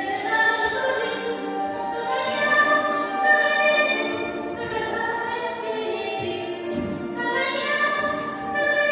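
Classical-style music with a singing voice holding long notes over orchestral accompaniment.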